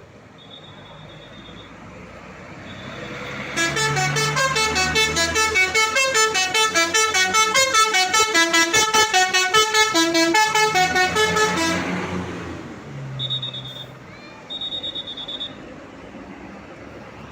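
A bus's telolet basuri musical horn playing a fast tune of rapidly changing notes for about eight seconds, starting a few seconds in, over the rumble of the vehicle.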